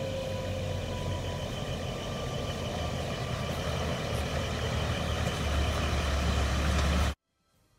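Vehicle engine sound effect: a steady rumble that grows louder and then cuts off abruptly near the end.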